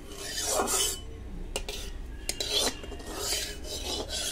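Metal spatula scraping around the inside of a metal kadai to spread hot mustard oil, about one scraping stroke a second with a few light clinks of metal on metal.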